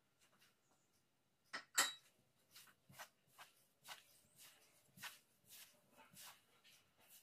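Hands mixing flour and water into pasta dough on a countertop: faint rubbing and squishing strokes about twice a second, after one sharper knock about two seconds in.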